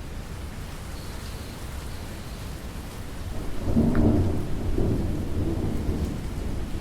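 Steady rainfall with a low roll of thunder that swells about three and a half seconds in, is loudest near four seconds, and rumbles away slowly.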